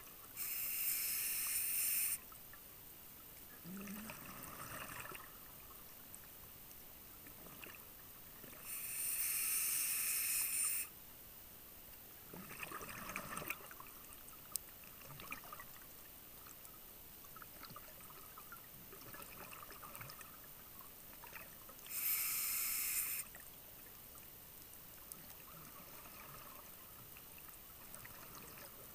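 Scuba diver breathing through a regulator underwater: three loud rushing bursts of exhaled bubbles, each a second or two long and about ten seconds apart, with softer hissing breaths and bubble gurgles in between.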